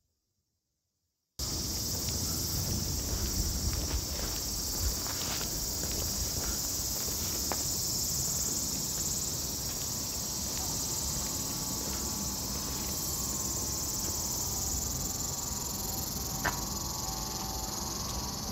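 A steady, high-pitched chorus of cicadas buzzing without a break. It starts abruptly about a second and a half in, after silence.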